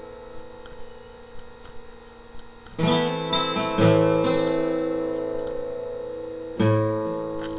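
Acoustic guitar chords strummed and left to ring: one strum about three seconds in, another a second later and a third near the end, each fading slowly.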